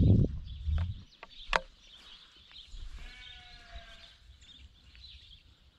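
Close handling thumps and rustle in the first second, with a sharp click about a second and a half in. Then a sheep bleats once for about a second.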